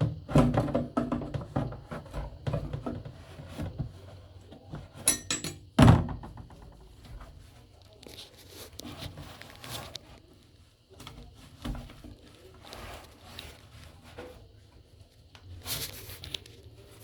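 Hand tool working a nut loose on a toilet cistern: scattered clicks, scrapes and knocks of metal and plastic, with one loud thump about six seconds in.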